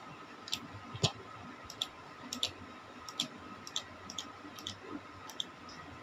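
Computer mouse clicking: about a dozen short, sharp clicks at irregular spacing, the loudest about a second in, over a faint steady hum.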